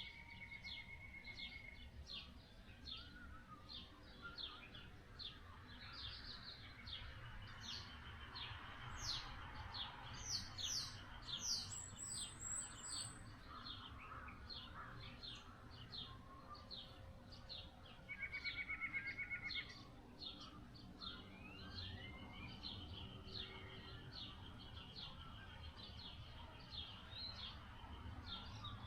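Wild birds chirping in short, repeated high notes, with a rapid trill at the start and again about eighteen seconds in, over a faint low background rumble.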